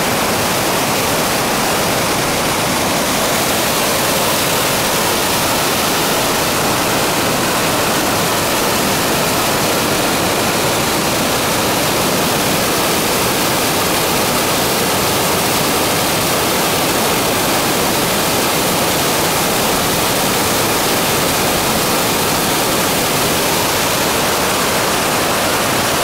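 Waterfall close by: water pouring and cascading white over rock ledges, a steady, even rush of noise that does not change.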